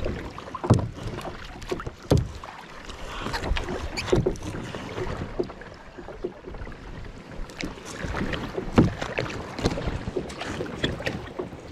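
Irregular knocks and bumps in a small boat, likely paddle or gear striking the hull, over a steady hiss of water and wind.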